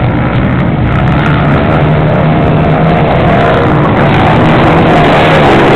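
Motocross motorcycles' engines revving and running on the dirt track, the wavering engine notes growing a little louder in the second half.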